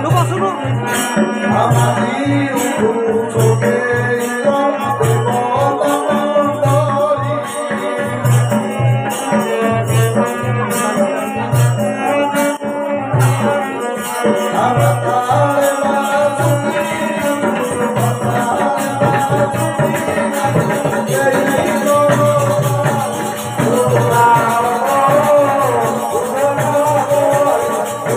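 Devotional bhajan music: a wavering sung melody over a steadily repeating low drum beat, with jingling rattle-like percussion on top.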